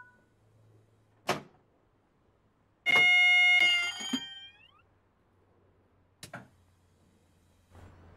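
A train's horn sounding once for under a second, its pitch sliding as it dies away, with sharp clicks before and after it.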